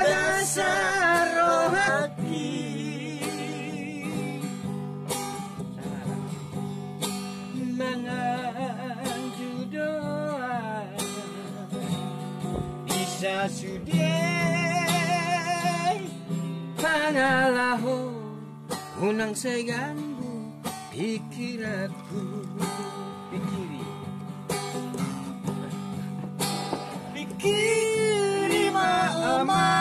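A man singing a Batak song in a high voice with a wavering vibrato, accompanying himself on a strummed acoustic guitar.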